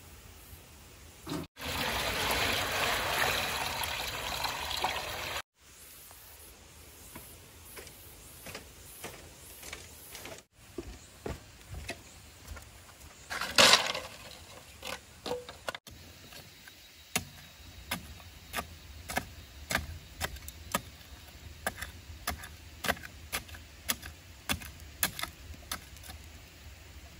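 Water pouring in a steady rush for about four seconds, then quieter handling noise with one loud knock, and later a run of sharp clicks and snaps, one or two a second.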